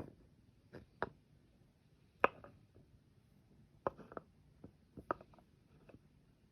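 Hand-grinder steel burrs being handled and set down: a scattered series of light clicks and knocks, the loudest a little over two seconds in.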